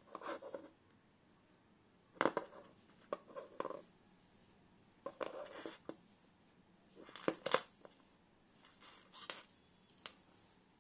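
Handling noise from a small metal pistol-shaped lighter keychain: short clusters of clicks, taps and scrapes against a tabletop, about six of them, one every one to two seconds.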